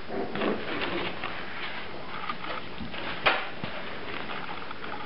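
Puppies scuffling about on a tiled floor: soft scattered clicks and rustles, with one sharp click a little over three seconds in.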